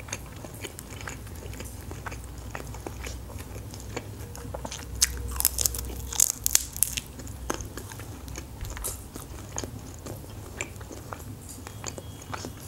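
Close-miked crunchy biting and chewing of a batter-fried shrimp, with a cluster of louder crunches about five to seven seconds in.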